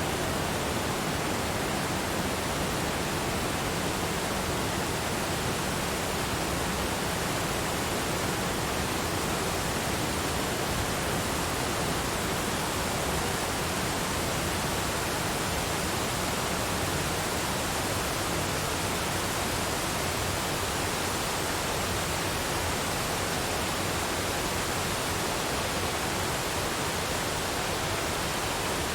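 Waterfall: water falling and rushing in a steady, unchanging hiss.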